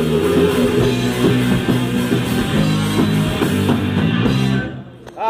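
Live rock band with electric guitar and drum kit playing, the drums striking steadily under the guitar; the music stops abruptly near the end as the song finishes.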